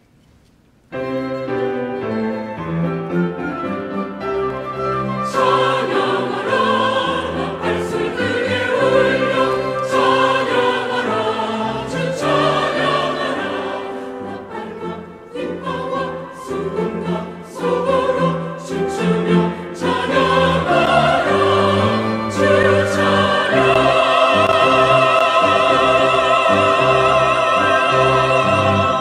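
Church choir singing a hymn of praise in Korean, accompanied by piano, violin and cello. The music starts suddenly about a second in and swells near the end, with the upper voices singing with vibrato.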